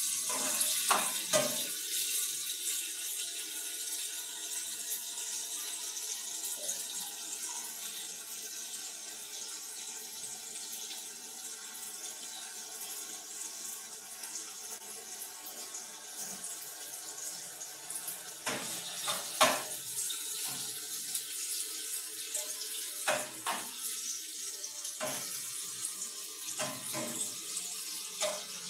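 Food sizzling in a frying pan over a gas burner: a steady high hiss. A metal spatula clinks and scrapes against the pan now and then, most often in the last ten seconds.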